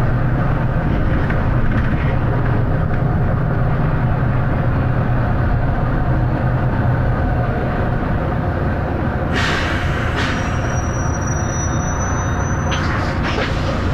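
Volvo B9TL bus's diesel engine running with a loud, steady thrash. About nine seconds in, a burst of air hiss from the bus's air system lasts about three seconds, with a thin high tone through most of it.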